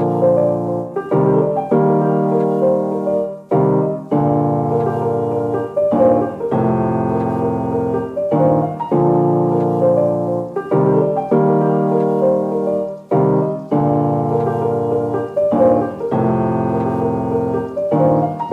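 Background music: a piano or electric-piano chord progression in steady, repeating phrases, with no vocals.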